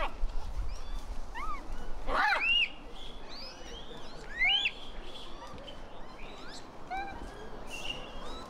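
Japanese macaques giving short coo calls that rise and fall in pitch. Several overlap around two seconds in, and a few more come scattered through the rest.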